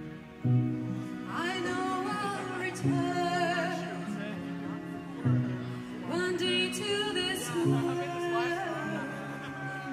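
Live symphonic metal: a female lead vocalist sings a wavering melodic line over sustained backing chords, in a quieter passage without heavy drums. The voice enters about a second in, pauses, and comes back about six seconds in.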